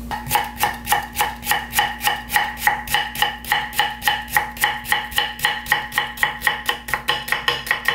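Kitchen knife rapidly julienning Korean radish on a thick wooden chopping board: an even run of about five knife strikes a second against the board.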